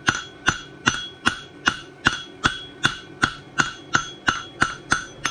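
Farrier's hammer striking a steel bar shoe on the anvil horn in a steady rhythm of about two and a half blows a second, each with a short metallic ring, bending the shoe to a curve.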